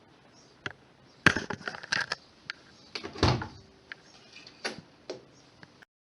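A string of sharp clicks and knocks, with a heavier, deeper thump about three seconds in.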